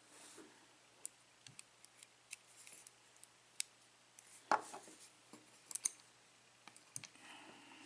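Scattered light clicks and taps of the small pins and parts of a disassembled euro pin-tumbler lock cylinder being handled and set down. A louder knock comes about halfway through, followed by a few sharp clicks.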